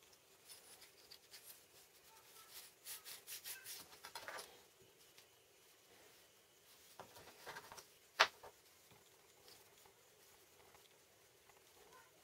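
Quiet handling noise of a steel ruler and small metal plates: light clicks and scraping as they are slid and fitted against each other, with a flurry of small taps a few seconds in and one sharper metallic click about eight seconds in.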